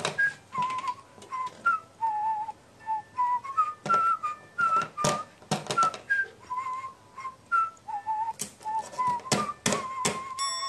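A whistled tune of short notes that step up and down in pitch, with sharp taps scattered among them.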